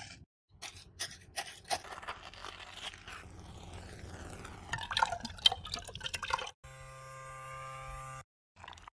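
Dried seaweed crackling and crunching, then rustling and clicking as the seaweed powder is sifted through a metal sieve. Near the end, a small handheld electric frother runs with a steady hum for about a second and a half while mixing the liquid.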